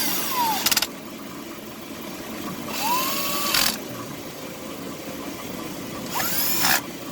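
Echo CS-440 chainsaw being pull-started: three rapid yanks of the recoil starter cord, each a short whirring rasp that rises and falls in pitch, with the engine not catching between pulls.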